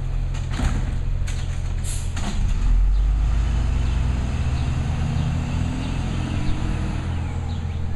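Automated side-loader garbage truck running at the curb while its arm lifts and dumps a wheeled cart. There are several knocks and clatters of the cart and arm in the first two seconds or so. From about two and a half seconds in, the engine rumble grows deeper and louder as the hydraulics work.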